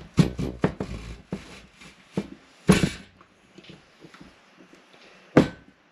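Zucchini being forced through a stainless-steel French fry cutter's blade grid: a quick run of crunching clicks and knocks. It is followed by a loud knock of the cutter a little later and another sharp knock near the end.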